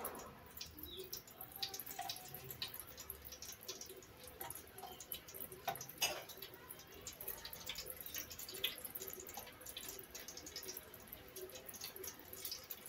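Cooking oil being spooned from a jar into a wide aluminium pot: faint scattered drips and light clicks of the small spoon against the jar and pot, the sharpest about six seconds in.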